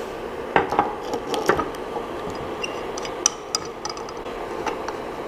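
Handling noise at a Creality LD-002R resin 3D printer: a few light clicks and taps as hands work at the machine peeling off its protective sticker, over a steady background hum.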